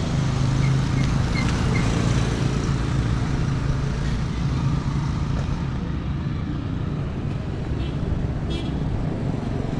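Road traffic: a motor vehicle engine running steadily with a low hum, over a constant haze of traffic noise.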